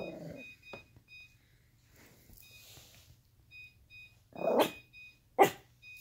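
Small fluffy dog barking at its own reflection in a fridge door: two sharp barks about a second apart, near the end.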